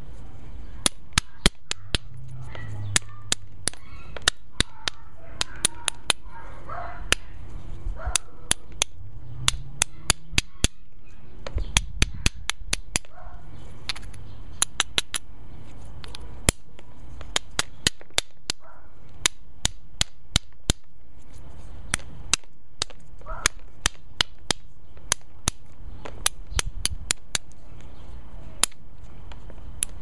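Flintknapping: a small round hammerstone tapping and striking the edge of a flint flake, giving dozens of sharp, light clicks at an irregular pace of about two or three a second.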